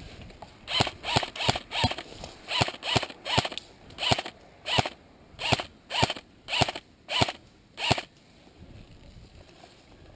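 Airsoft electric gun firing a quick series of single shots, each a short sharp mechanical snap, about fifteen in seven seconds at an uneven pace, stopping about two seconds before the end.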